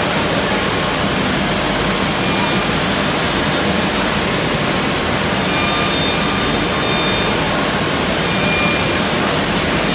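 Multi-spindle CNC mortise-and-tenon machine running, its spindle cutters spinning with a loud, steady rushing noise and a few faint, brief whining tones.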